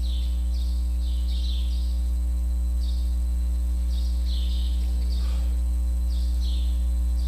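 Steady, loud electrical mains hum, with short, faint high chirps repeating about once or twice a second.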